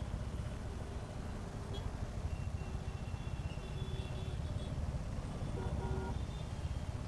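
Motorcycle engine running steadily under way, a fast low pulsing beneath road noise. A brief faint tone sounds about five and a half seconds in.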